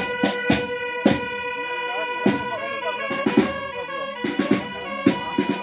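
Drums struck in an uneven pattern of single hits and short doubles over a steady, held droning tone with several overtones, from a marching protest.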